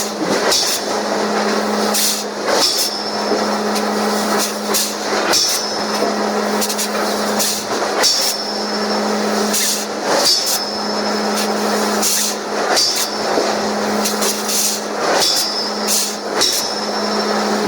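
Heavy forging machinery at work on hot steel: a steady machine hum breaks off about every two and a half seconds, and each break brings a heavy metal clank, often followed by a short high metallic ring.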